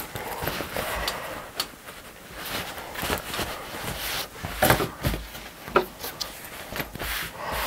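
Fabric pouch being handled and smoothed by hand: cloth rustling and rubbing, with a few light taps and knocks as it is pressed into shape and set down on the cutting mat.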